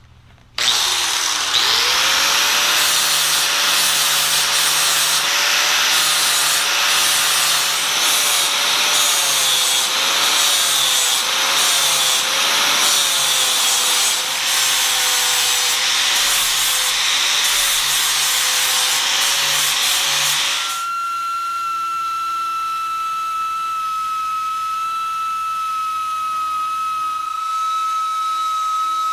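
Angle grinder spinning up and grinding on a cast iron gearbox casting, its motor pitch wavering as the disc is pressed into the metal. About two-thirds through the grinding stops suddenly and a steady machine hum with a high whine takes over.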